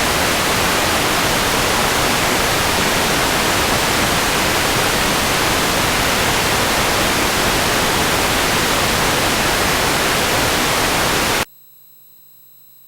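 Television static: a steady, loud hiss of white noise, the sound of a dead broadcast channel. It cuts off suddenly near the end, leaving only a faint, steady hum.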